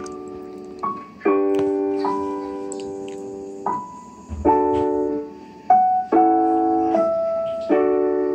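Keyboard music playing as the DVD's main-menu loop, heard through a TV speaker: a slow, gentle melody over held piano-like chords, with a new chord struck every second or so.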